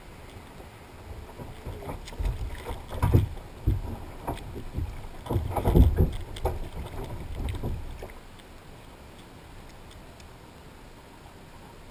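Water splashing and knocks against the hull of a plastic sit-on-top kayak as a wet dog is hauled out of the sea and aboard. The sound comes in a run of uneven bursts over several seconds, loudest around the middle, then settles back to quieter water noise.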